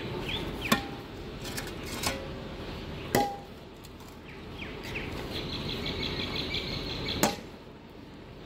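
Metal shovel blade striking and scraping broken concrete and rubble, a few sharp clinks with brief ringing, the loudest about three seconds in and another near the end.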